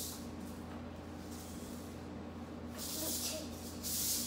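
Hula hoop spinning around a child's body, giving a hissy swish each few turns, several times over. A steady low hum runs underneath.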